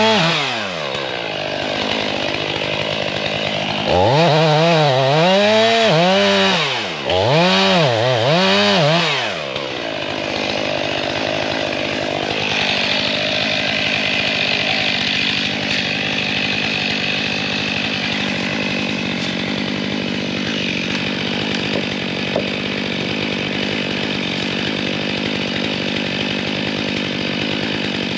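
Chainsaw running at full throttle, its engine pitch rising and falling about once a second, from about four to ten seconds in with a short break midway; it then settles to a steady idle.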